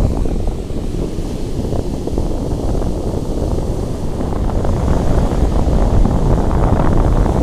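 Strong sea wind buffeting the microphone with a low, gusty rumble, surf washing in behind it. The gusts grow a little stronger in the second half.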